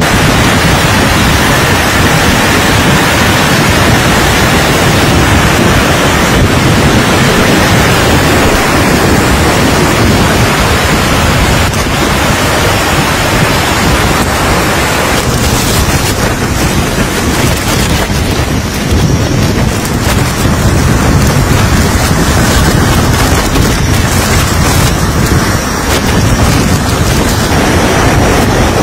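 Tropical-cyclone wind and driving rain, a loud, continuous rush of noise with heavy wind buffeting on the microphone; its tone shifts about halfway through.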